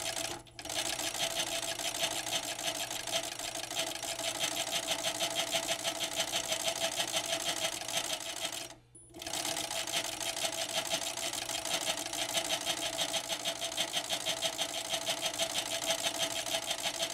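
FS-76MD fur sewing machine (봉조기) running at speed, an even rhythmic clatter over a steady hum, as it stitches a thick fur-coat seam fed between its two feed discs. It stops for about half a second near the middle, then runs on.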